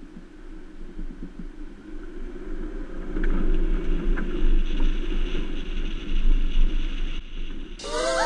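Vehicle driving on a dirt road, heard from a camera mounted on its hood: a low rumble of engine, tyres and wind that grows louder over the first three seconds and then holds steady. Music starts near the end.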